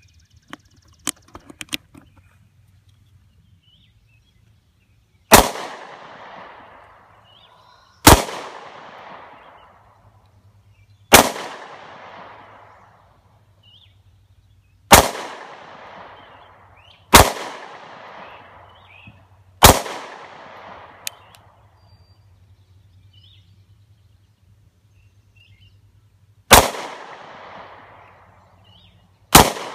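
A few clicks of cartridges being pressed into a pistol magazine, then eight handgun shots fired singly, two to seven seconds apart, each followed by a long echo dying away.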